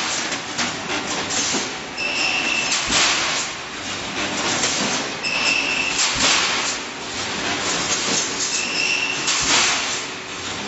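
Automatic rebar mesh welding machine running in a repeating cycle about every three and a half seconds. Each cycle is a short high whine followed by a loud rush of noise, over constant metallic clicking and clatter. Three cycles are heard.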